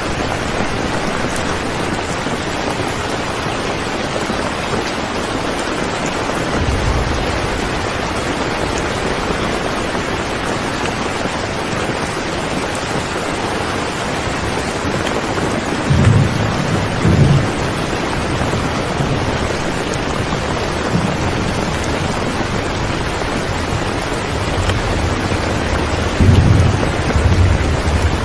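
Steady rain falling, an even hiss, with a few low rumbles rising out of it: one about a quarter of the way through, two in the middle, and a cluster near the end.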